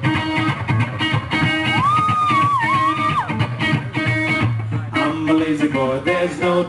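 Live rock band playing, with electric guitar to the fore. A held, bending melodic line rises over the band about two seconds in.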